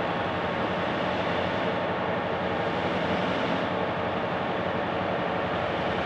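Ex-Victorian Railways diesel-electric locomotives, an S class in the lead, with their engines running in a steady, loud drone. The heavy grain train is barely moving on the grade, with no change in the engine note.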